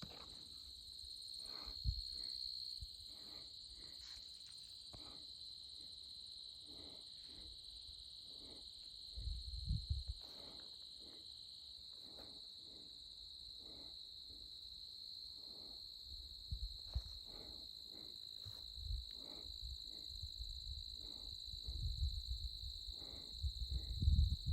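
Steady insect chorus, a continuous high trill, with the hiker's footsteps on the trail at an even walking pace of about one and a half steps a second. A few low rumbles come in, the strongest about nine seconds in and near the end.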